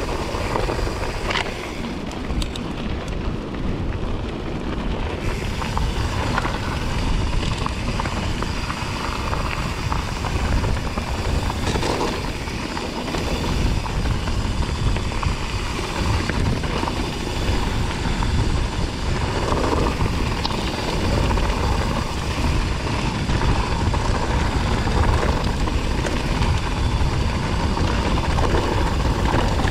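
Mountain bike rolling over a loose gravel and stone track: steady tyre crunch with scattered rattles and knocks from the bike, under a low rumble of wind on the microphone.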